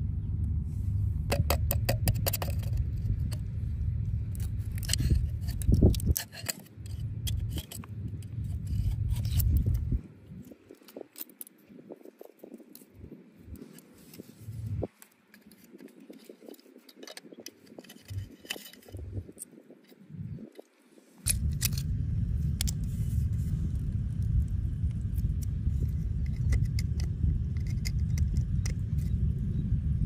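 Metal oyster pick tapping, prying and scraping against rock oyster shells fixed to a boulder, a scatter of sharp clicks and scrapes. A steady low rumble sits underneath except for a quieter stretch from about 10 to 21 seconds in.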